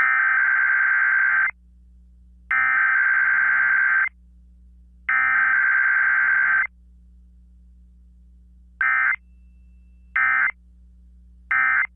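Emergency Alert System SAME digital data tones on a Required Weekly Test. First come three header bursts, each about a second and a half long, a second apart. Near the end come three short end-of-message (EOM) bursts, each under half a second.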